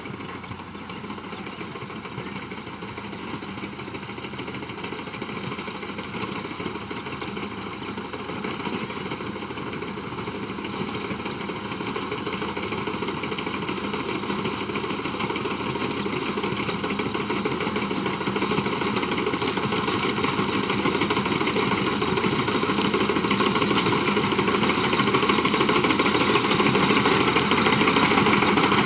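Engine of a wheat reaper machine running steadily, getting gradually louder.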